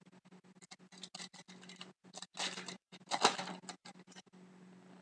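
Hockey trading cards being handled and flipped through: a string of light clicks and ticks, with two louder rustles of card sliding over card about two and a half and three and a quarter seconds in. A steady low hum runs underneath.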